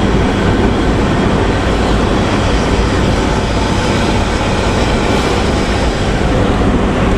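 Front-engined bus running with its 'ngorok' exhaust, a steady, loud, deep snoring rumble.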